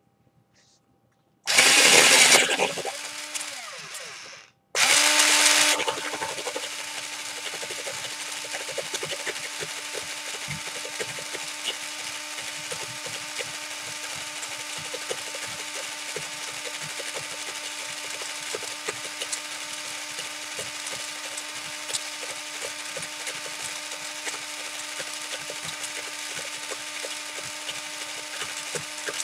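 A pencil being sharpened by a small electric motor: the motor starts loudly about one and a half seconds in, stops about three seconds later, then starts again and runs steadily with the gritty scraping of the pencil wood and lead being shaved away.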